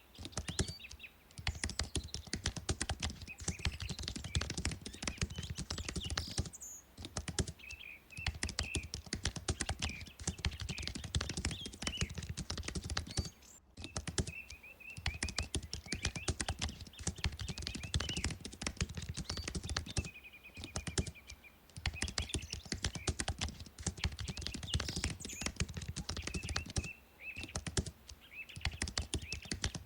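Fast typing on a computer keyboard: runs of rapid key clicks broken by short pauses every few seconds.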